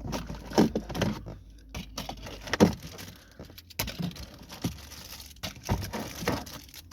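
Irregular handling noise of loose items and rubber mats in a car's interior storage compartment: scattered clicks, taps and rustles, with one sharper knock about two and a half seconds in.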